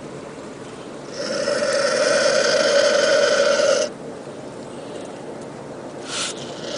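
Vulture giving a raspy hiss lasting about three seconds, followed by a brief rasp near the end.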